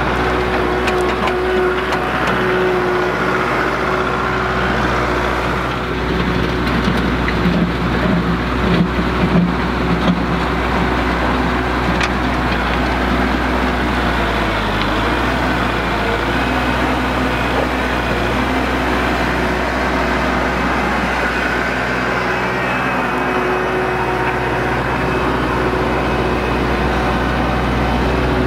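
Kubota MX5400 tractor's four-cylinder diesel engine running steadily as it pulls a Land Pride land plane, grading loose dirt.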